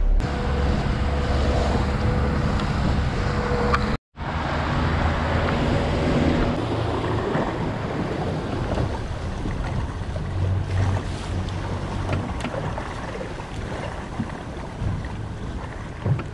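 Honda outboard motor running steadily as the small boat moves under way, mixed with the rush of the wake and wind buffeting the microphone. The sound cuts out completely for a moment about four seconds in.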